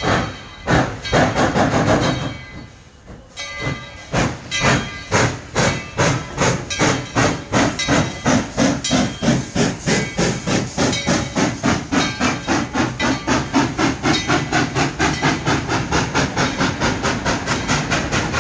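Steam locomotive chuffing as it pulls a train away, the exhaust beats starting slow and heavy and quickening to about four a second over a steady hiss of steam.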